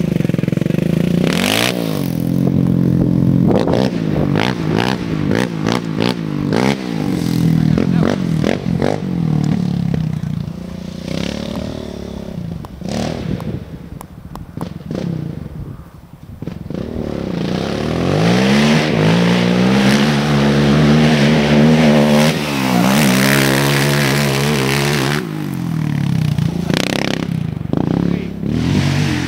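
ATV engine revving up and down, with clattering and knocks. The engine winds up and runs hardest about two-thirds of the way through, then drops off sharply.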